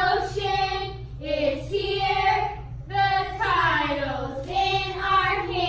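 A group of girls chanting a cheer together in unison, in drawn-out voiced phrases with short breaks between them.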